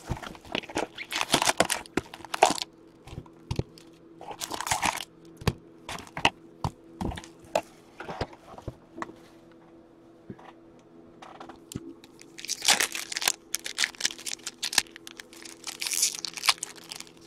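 Upper Deck SP Authentic hockey card box being opened and its wrapped card packs torn open by hand: a run of sharp crackles and clicks with several bursts of tearing and crinkling wrapper.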